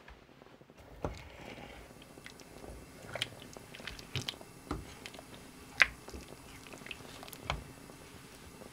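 Utensil stirring in a large steel pot on a gas stove, knocking against the pot in irregular clicks and knocks, the sharpest one about six seconds in.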